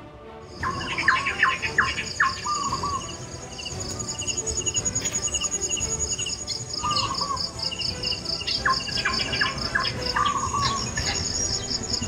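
Outdoor chorus of insects with a steady, pulsing high buzz, and birds calling in bursts of quick repeated chirps and short falling notes. The sounds start abruptly about half a second in.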